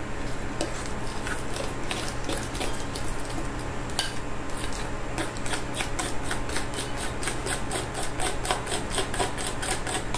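A utensil beating banana batter in a bowl, clicking against the bowl. The clicks are scattered at first, then turn into a quick, steady run about halfway through.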